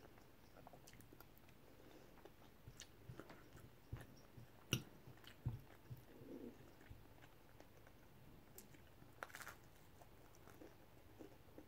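Quiet chewing and mouth sounds of someone eating paella and bread, with a few short sharp clicks, the loudest about halfway through.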